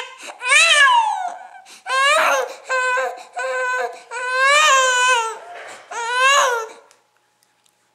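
Infant crying in a series of wails that rise and fall in pitch, one longer wail in the middle, stopping about a second before the end. The crying is a reaction to a piece of melon on a fork, the baby's first taste of melon.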